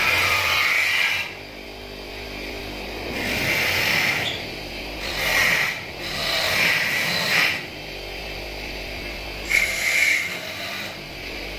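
Wire wheel brush on a bench motor scrubbing rust and grime off a chrome-plated steel motorcycle mudguard: a harsh scraping hiss each time the mudguard is pressed to the wheel, about five times, with the motor running more quietly in between.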